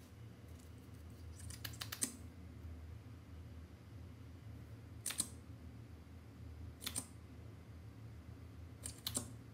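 A few sharp small clicks and taps from a liquid lipstick tube and its applicator wand being handled and dabbed onto clear slime: a quick cluster about two seconds in, single clicks around the middle, and a pair near the end, over a low steady hum.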